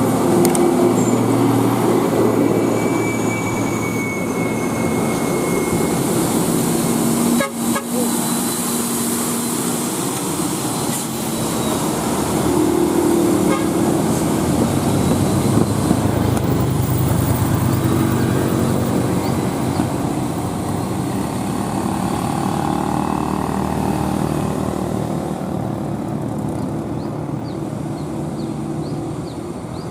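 Heavy truck engine running with traffic, and a vehicle horn sounding a few times.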